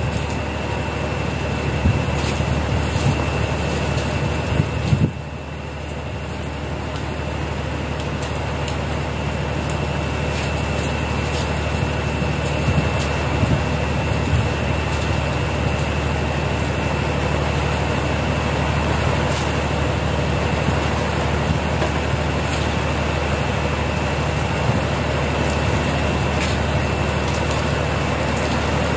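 Steady drone of large machinery on the vessel's deck: a low hum with a thin, steady high whine over it and scattered faint clicks.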